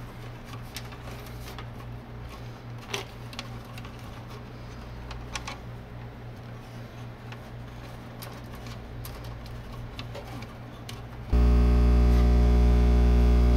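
Faint, scattered clicks and taps of wires and small parts being handled inside a plastic enclosure over a steady low hum. About eleven seconds in, louder background music of sustained tones starts suddenly.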